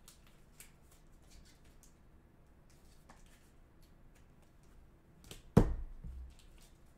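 Trading cards in plastic sleeves and holders being handled: faint rustling and light ticks, with one sharp thump about five and a half seconds in.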